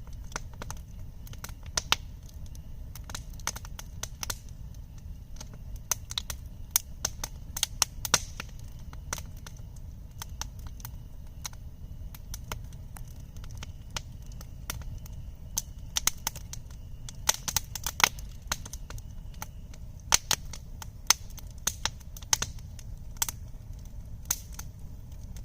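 Campfire crackling, with loud irregular snaps and pops over a steady low rumble.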